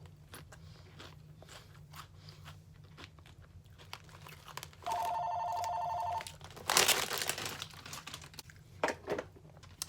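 Faint crunching of potato chips being chewed. About five seconds in, a phone rings with a steady trilling two-tone ring for just over a second. This is followed by a loud rustle and crinkle.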